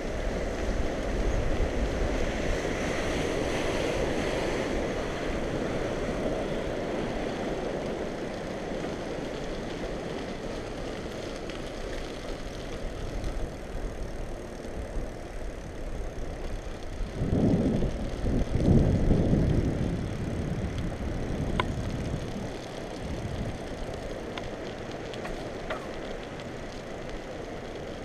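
Wind rushing over an action camera's microphone and tyre noise from a bicycle being ridden, with a louder rumble for a few seconds past the middle and a couple of sharp clicks after it.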